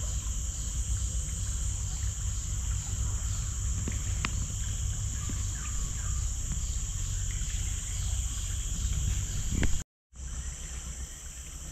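Steady high-pitched drone of tropical insects with an even pulsing chirp about twice a second, over a low rumble of fast-flowing river water and wind. The sound cuts out completely for a moment near the end.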